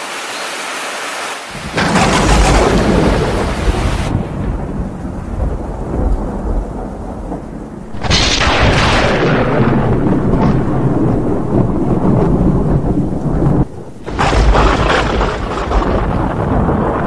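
Thunderstorm: heavy rain with rolls of thunder, starting about a second and a half in and cutting abruptly between louder and softer stretches.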